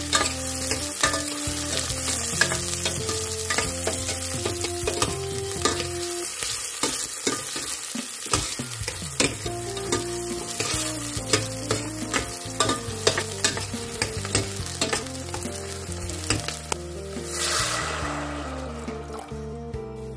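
Garlic, ginger and spring onion sizzling in hot oil in a stainless steel saucepan, with the metal ladle and spatula clicking and scraping against the pan as they are stirred. Near the end comes a louder rush of hissing as a bowl of water is poured into the hot pan.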